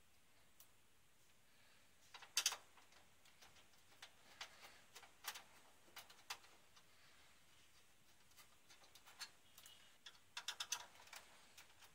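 Scattered small clicks and taps of a screwdriver working screws out of a VCR's metal case, with a quick run of clicks about two seconds in and another near the end.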